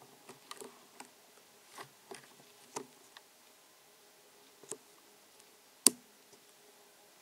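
Light scattered rustles and clicks of a cat shifting and pawing on a carpet, with one sharper click about six seconds in.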